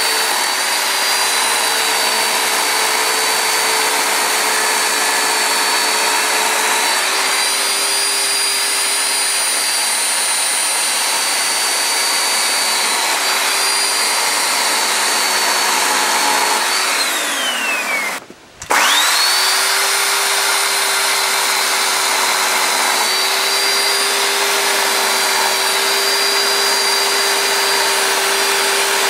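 Chainsaw running at high revs as it carves into a wooden post, holding a steady high whine. About two-thirds of the way through the revs fall away and the sound cuts out for a moment, then it comes straight back up to full speed.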